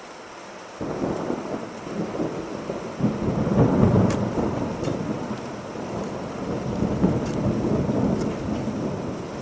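Rolling thunder: a low rumble starts suddenly about a second in, swells again around three seconds, is loudest near four seconds and keeps rolling unevenly.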